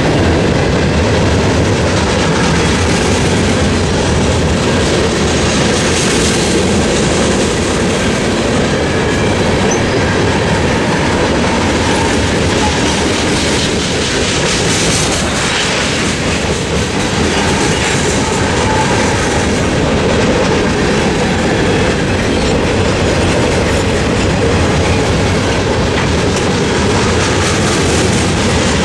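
Mixed freight cars of a Norfolk Southern train rolling steadily past, with a loud continuous rumble of steel wheels and clickety-clack over the rail joints and crossing.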